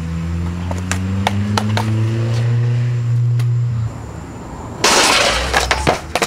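A car engine running nearby, its pitch slowly rising, with scattered sharp clacks over it; the hum cuts off abruptly about four seconds in. Near the end comes a loud crash followed by a quick run of clatters, a skateboard hitting the concrete.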